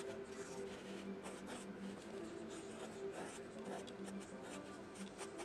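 A pen scratching on paper in quick short strokes as a hairstyle is inked, over soft background music of a few held low notes.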